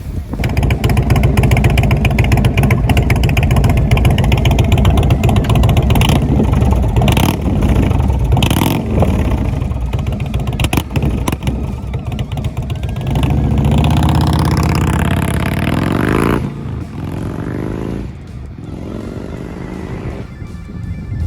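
Indian motorcycle's Thunder Stroke 116 V-twin running through TAB Bam Sticks slip-on mufflers, loud and revving hard. Past the middle the engine note climbs steadily for a few seconds, then drops away suddenly to a quieter, lower note.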